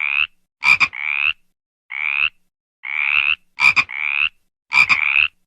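Dubbed frog-noise sound effect repeating in a pattern: short, sharp double chirps alternate with longer squeaky calls that rise in pitch, about two calls a second.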